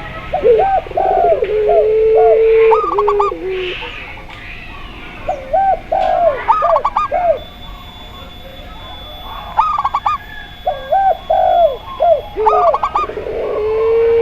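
Several doves cooing together: a zebra dove's quick clusters of short high notes, repeating every few seconds, over spotted dove coos, and a Barbary dove's long drawn-out low coo about half a second in and again near the end.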